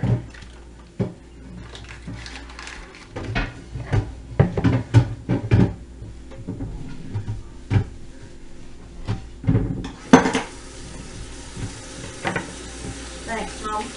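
Dishes, pots and cutlery clinking and knocking in a series of irregular short strikes, the loudest about ten seconds in. A faint steady hiss begins about ten seconds in.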